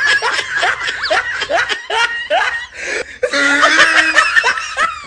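Laughter in quick repeated bursts, about three a second, swelling into a denser stretch of laughing a little past the middle.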